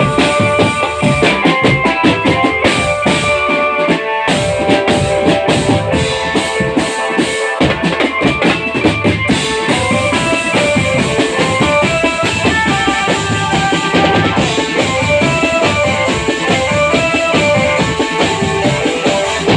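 Marching drum band playing a tune: steady snare and bass drumming under a melody of held notes.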